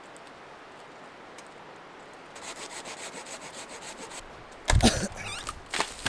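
Hand pruning saw cutting through a dead birch limb: rhythmic rasping strokes, about three a second, starting about halfway in, then a loud crack and thump near the end as the limb breaks away.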